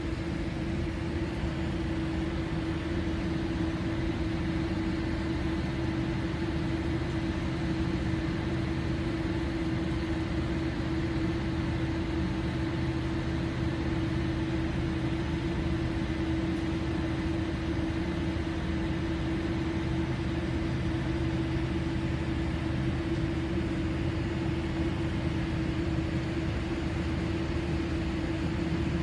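Steady cabin noise inside a Boeing 787 Dreamliner taxiing on the ground, engines at idle, with a steady humming tone over a low rumble and hiss.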